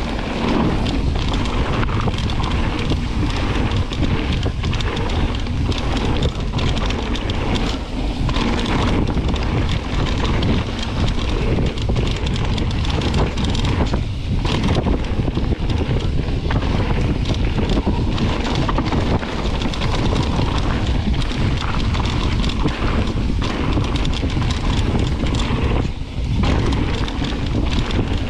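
Wind buffeting the action camera's microphone while a mountain bike rides fast along a dirt and gravel trail, its tyres rolling over the ground.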